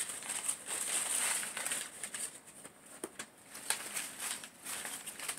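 Rustling and crinkling of paper being handled, with scattered light taps and clicks.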